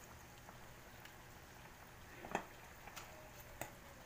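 A few light knocks of a spatula against the metal pan of simmering pork stew, starting about halfway through, over a faint quiet background.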